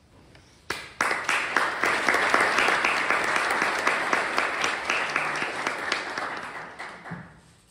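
Audience applauding. It starts suddenly about a second in and dies away near the end.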